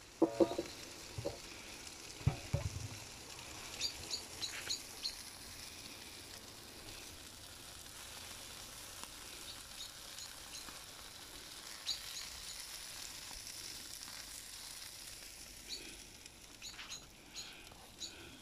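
Chicken thighs and cheeseburger patties sizzling on a charcoal kettle grill over glowing coals: a steady high hiss. A few clunks in the first three seconds, and short high chirps scattered through.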